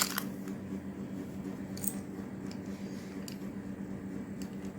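A few light clicks from handling plastic toy parts over a steady low hum.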